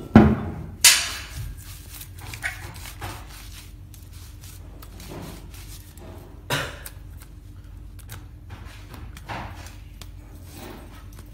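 Steel extruder parts, the screw and die, being handled and knocked together: two sharp metal clanks within the first second, a few lighter knocks after that and one more clank about halfway, with small clinks in between.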